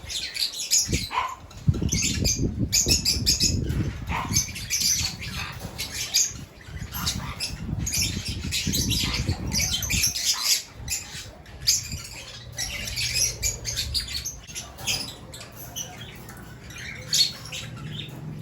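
Small pet parrots chirping and squawking, with bursts of wing flapping. The flapping is loudest from about two to four seconds in and again from about eight to ten seconds in.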